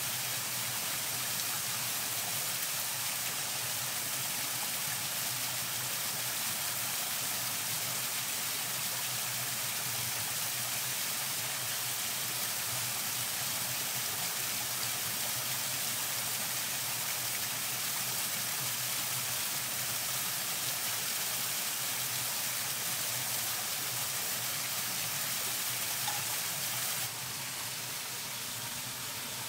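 Small mountain waterfall splashing over rocks: a steady rushing hiss, dropping slightly in level near the end.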